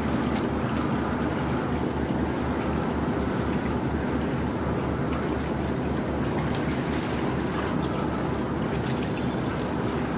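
A boat engine running steadily, a fast low throb under a continuous rushing of water and wind.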